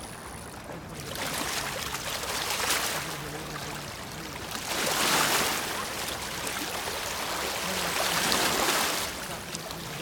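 Water splashing in three swelling surges as a hooked sturgeon thrashes at the surface in the shallows.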